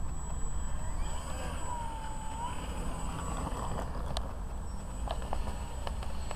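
Wind rumbling on the microphone, with a faint steady high whine throughout and a few light clicks.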